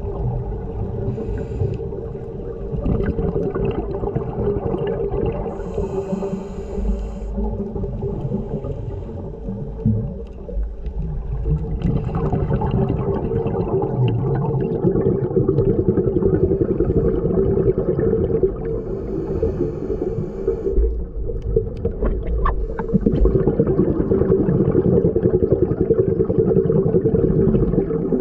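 Muffled underwater sound from a scuba dive: a steady low hum, with short bursts of bubbling and hiss every several seconds, like a diver's exhaled regulator bubbles.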